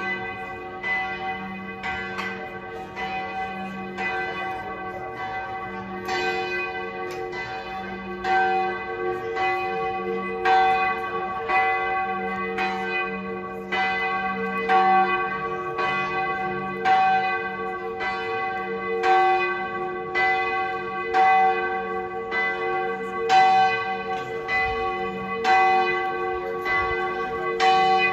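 Several church bells ringing together for noon, their overlapping strikes blending into a continuous ringing hum. A heavier stroke stands out about every two seconds, and the peal grows louder through the second half.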